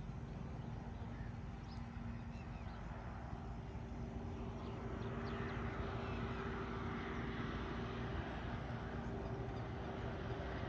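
A motor's steady hum, with two held tones over a low rumble, under a hiss of outdoor noise that grows louder about halfway through.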